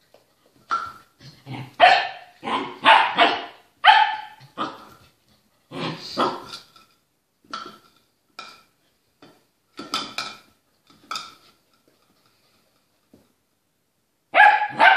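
Puppy barking in a string of short barks at a hairbrush it is wary of, keeping its distance. The barking runs for about ten seconds, stops briefly, and starts again with a quick volley near the end.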